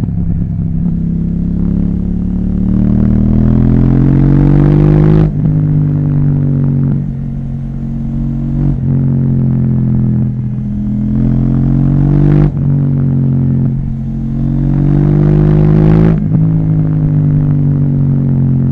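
KTM 790 Duke's parallel-twin engine through an Akrapovic exhaust, pulling hard on the road: the revs climb steadily and then drop sharply about four times.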